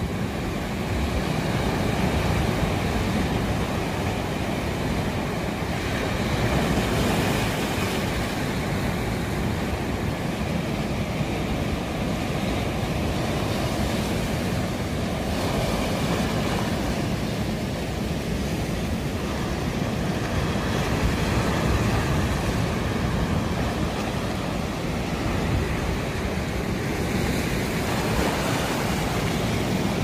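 Sea surf breaking and washing over a rocky shore: a continuous rushing that swells every few seconds as waves come in.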